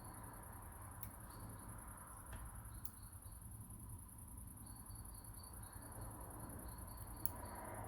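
A few faint, sharp clicks of small lock parts being handled as chambers of a dimple lock core are loaded with pins, over a steady high-pitched buzz.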